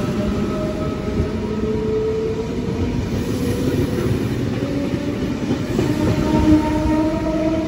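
A Sydney Trains V-set double-deck intercity electric train running past along the platform and drawing away. A constant rumble of wheels on rail carries a few steady motor tones that slowly shift in pitch.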